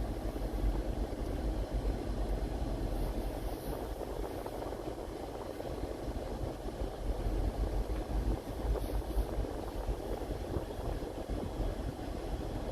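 Car moving slowly, heard from inside the cabin: a steady rumble of engine and road noise.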